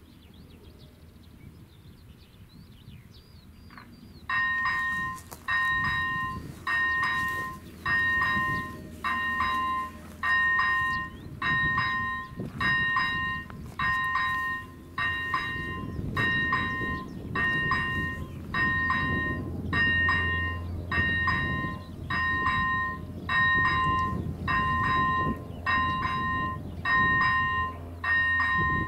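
Level crossing warning bell of an AŽD 97 crossing, electronic, starting about four seconds in and ringing in repeated bursts about once a second. A low rumble builds under it in the second half as a train approaches.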